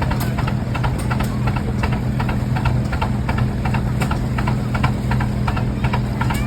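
Antique Rumely OilPull tractors' slow two-cylinder engines running, belted to a sawmill: a steady low drone with a regular sharp beat.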